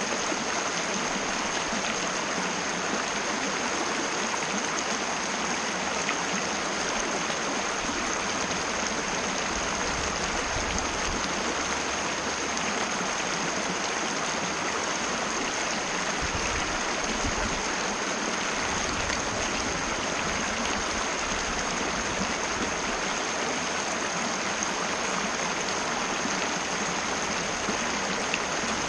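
Mountain river flowing steadily, an even, unbroken rush of water.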